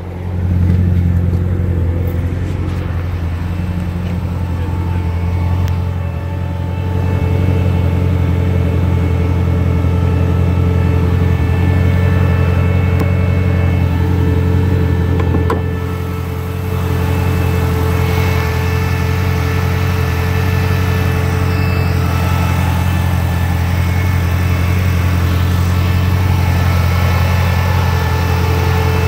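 2014 Camaro Z/28's 7.0-litre LS7 V8 idling steadily, growing louder about half a second in and dipping briefly twice.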